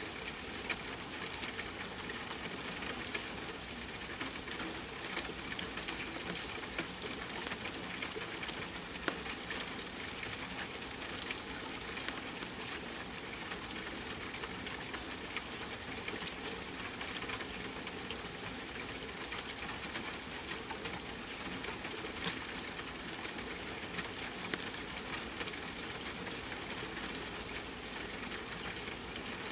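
Steady rain hiss mixed with a fireplace crackling, with small sharp pops scattered throughout.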